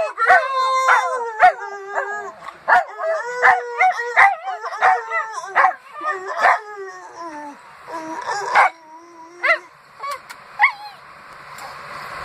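Dog howling and barking in quick runs of short pitched calls that bend up and down. After about nine and a half seconds only a few short yips remain.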